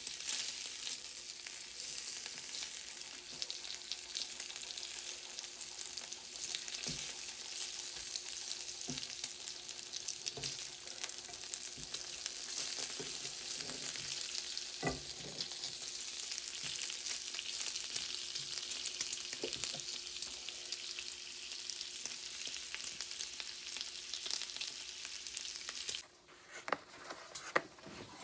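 Food frying in a pan: a steady crackling sizzle with a few light knocks, cutting off abruptly near the end.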